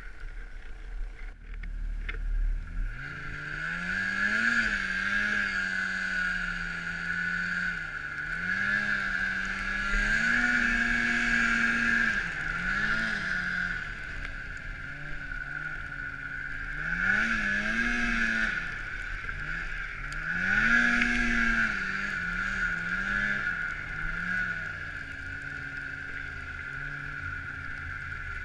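Polaris snowmobile engine throttling up about two seconds in, then revving up and down repeatedly as the sled rides through deep snow, with a steady high whine over it.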